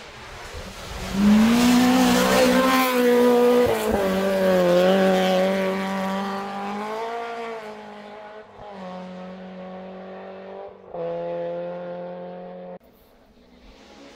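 Rally car engine at full throttle, its pitch climbing and stepping down with each gear change as the car passes, then fading. A second burst of engine noise near the end cuts off abruptly.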